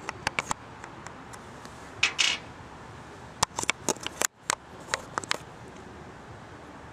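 Sharp small clicks and clacks from small plastic toy figures being handled and swapped in the fingers close to the microphone, with a short scraping rustle about two seconds in.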